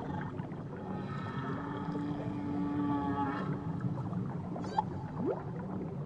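Humpback whale song: a long, steady moan with overtones, then a short call sweeping upward near the end, with brief high squeaks between.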